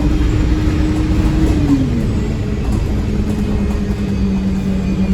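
Stagecoach South bus 26158's diesel engine running hard under acceleration, heard from on board; its note holds steady, then drops and settles lower about two seconds in.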